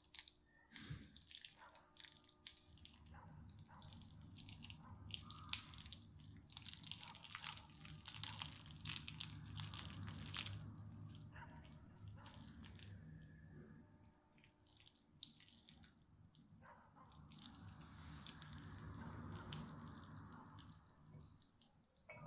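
Fork twirling and lifting spaghetti coated in a creamy carbonara sauce: faint wet, sticky squelches with scattered small clicks of the fork on the plate.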